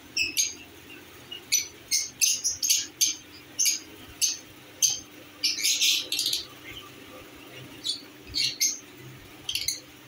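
Lovebirds chirping: many short, sharp, high-pitched calls at irregular intervals, with a denser run of calls about halfway through.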